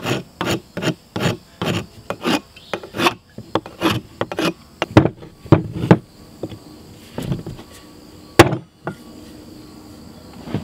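Round rasp scraping a wooden hammer handle in quick back-and-forth strokes, about three a second, taking down the handle's sides to fit the hammer's eye. The rasping stops about six seconds in, and the steel hammer head is test-fitted onto the handle, with one sharp knock about eight seconds in.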